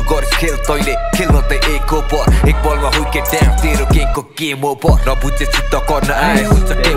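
Nepali drill-style hip-hop track: rapping over deep 808 bass and hi-hats. Just past the middle, the beat and bass drop out for about half a second, then come back in.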